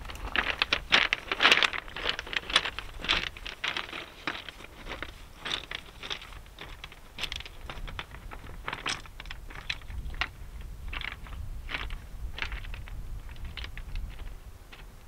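Footsteps crunching on a shingle bank of rounded pebbles, loud and close at first, then growing fainter as the walker climbs away.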